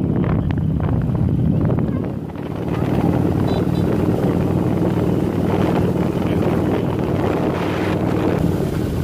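Motorcycle engine running steadily under way, with wind rushing over the helmet-mounted microphone. The engine note eases off briefly about two seconds in, then picks up again.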